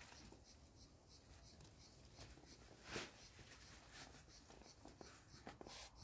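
Crickets chirping faintly in an even, repeating rhythm, with a short scraping rustle about three seconds in and a few soft clicks near the end.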